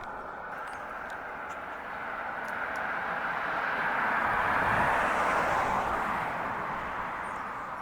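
A vehicle passing by: a steady rushing noise that swells to a peak about five seconds in and then fades away.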